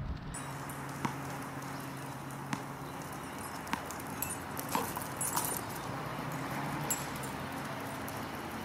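Scattered sharp taps and clicks, about seven of them at irregular intervals, over a steady low hum.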